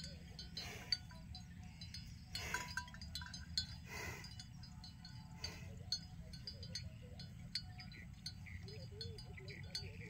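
Small metal bell on a water buffalo's collar clinking irregularly as the animal moves its head, with a few louder short bursts, over a steady low rumble.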